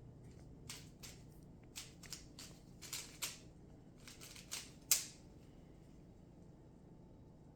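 Rubik's cube being turned by hand: quick plastic clicks and rattles of its layers rotating, in short bursts, with the sharpest click about five seconds in, then a pause.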